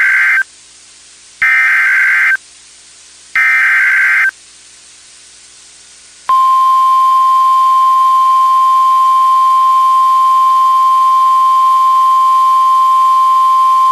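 Emergency Alert System SAME header on NOAA Weather Radio: three short bursts of warbling data tones about two seconds apart, the first already under way. About six seconds in, the steady single-pitch 1050 Hz weather radio warning alarm tone starts and holds, signalling that a warning message follows.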